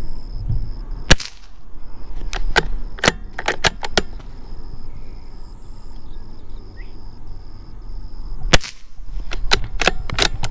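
Two shots from a Ruger Precision Rimfire bolt-action rifle in .22 LR, about seven and a half seconds apart. Each is followed by a quick series of metallic clicks as the bolt is worked to eject the spent case and chamber the next round.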